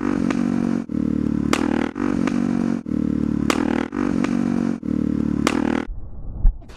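Motorcycle engine running steadily under way, with a short dip in level about once a second, which cuts off suddenly near the end.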